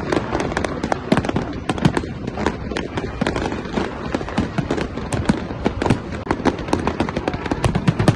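Fireworks going off: a dense, continuous barrage of sharp bangs and crackles, many every second.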